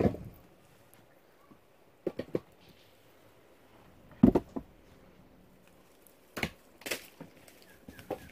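Scattered wooden knocks and thuds of firewood logs being lifted and dropped onto a pile, about six in all, the loudest about four seconds in.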